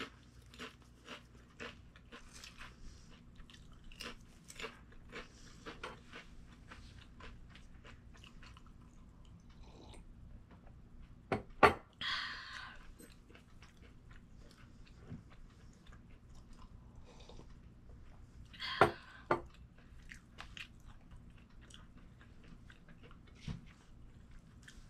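Close-up chewing of crunchy fried carrot fries: a run of small crunches, with two louder crunchy bites, one about halfway through and one about three-quarters of the way through.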